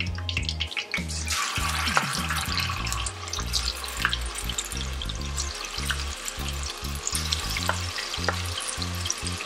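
Battered chicken pieces frying in hot cooking oil: a dense sizzle with scattered pops that swells sharply about a second in as the pieces drop into the oil, then keeps going.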